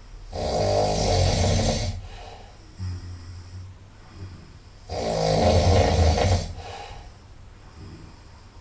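A person snoring loudly through the nose: two long snores, each about a second and a half, about four and a half seconds apart, with quieter breaths between.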